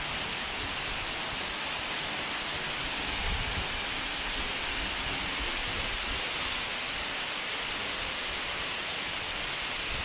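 Tall waterfall plunging into a pool, a steady rushing roar of falling water with no breaks.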